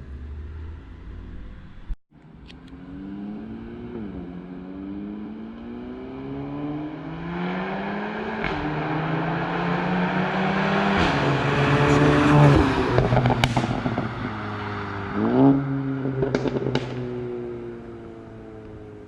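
Modified 2015 VW Golf GTI Mk7 2.0 turbo four-cylinder with a Borla cat-back exhaust and APR Stage 2 crackle tune, accelerating hard through several quick DSG upshifts, the pitch climbing and dropping at each shift with sharp pops. A burst of crackles and bangs follows as the throttle is lifted, and the engine note falls away as the car slows.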